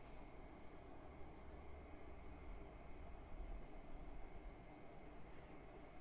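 A cricket chirping steadily, about four short high-pitched pulses a second, over a faint low rumble.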